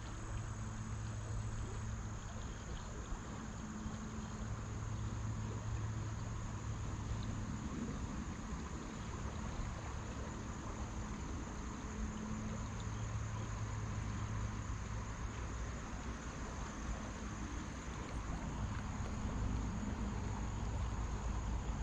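Steady riverside ambience: the even rush of a river's current over shallow rocky riffles, with a constant high, thin insect drone over it.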